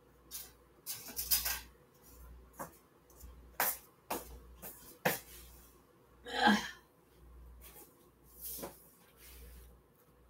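Kitchen clatter from fetching a spoon: scattered light clicks and knocks of utensils, with one longer rasping sound about six seconds in.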